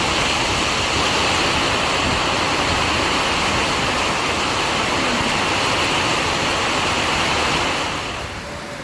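A steady, loud rush of water with no break in it, easing off about eight seconds in.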